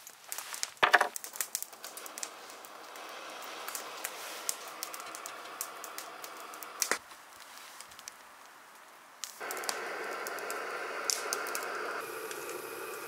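Small backpacking stove on a gas canister is lit with a burst of clicks about a second in, then its burner hisses steadily. A metal pot clinks onto the pot supports around seven seconds in, and the hiss is louder from about nine seconds as the water heats.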